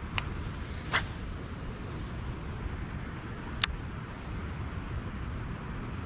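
Steady low outdoor rumble, broken by three brief sharp clicks, the first two within about a second of the start and the third a little past halfway.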